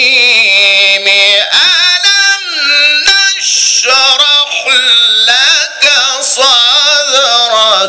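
An Egyptian Qur'an reciter's voice in ornate melodic (mujawwad) recitation over a microphone and PA, drawing out long melismatic phrases with trills and pitch glides, broken by a few short breaths.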